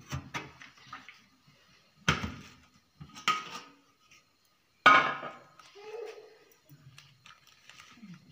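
Stainless-steel idli steamer pot and its lid being handled: a handful of sharp metallic clanks and knocks. The loudest, with a brief ringing, comes about five seconds in.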